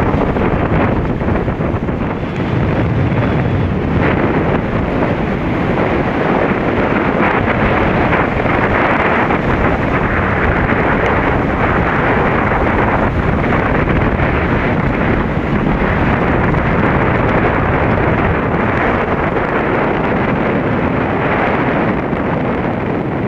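Strong wind buffeting the microphone: a loud, steady rushing noise with no let-up.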